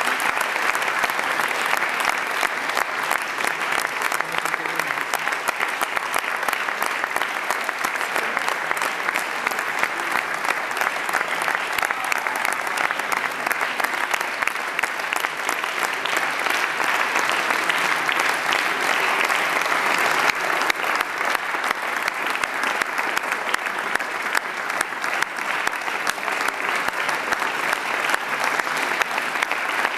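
Audience applauding: dense, steady clapping from many hands, continuing unbroken throughout.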